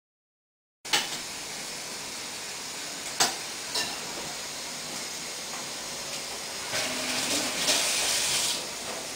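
Sharp mechanical clicks from the trigger mechanism of a pneumatic speargun charged to about 4 bar, two of them about half a second apart around three seconds in, over a steady hiss. A louder stretch of hiss lasts about a second and a half near the end.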